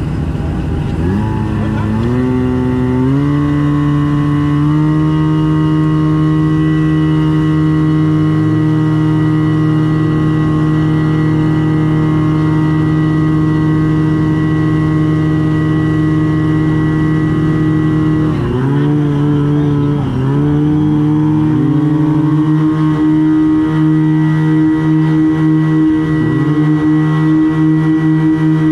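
Portable fire pump engine running at high throttle. It revs up in steps over the first few seconds and then runs steady; about two-thirds of the way through it dips twice and picks up again before holding steady, with a slight waver near the end.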